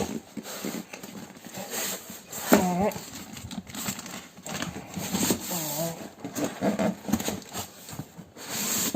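Cardboard box and foam packing rustling, scraping and knocking as a heavy solar inverter is wrestled out and the box turned upside down, with a couple of brief vocal sounds.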